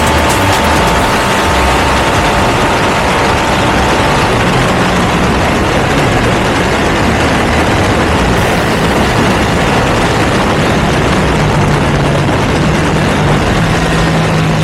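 Ducati V2 motorcycle's L-twin engine with a Termignoni exhaust running while being ridden, heard loud and steady under a dense rushing noise.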